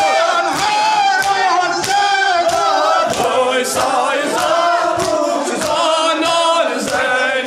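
A crowd of mourners chanting a lament (noha) together in many voices, over a steady beat about every 0.6 seconds from hands striking chests in matam.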